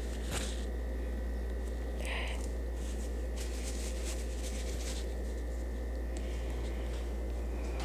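Steady low electrical hum of room tone, with a few faint brief clicks and rustles: one just after the start, a short hiss about two seconds in, and light ticks in the middle.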